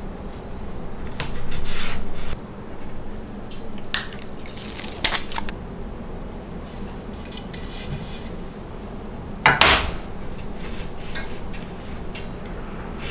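Handling sounds of a workbench build: scattered clicks, scrapes and light metallic clinks as tools and parts are picked up and set down, with a sharper clatter about ten seconds in. No power tool is running.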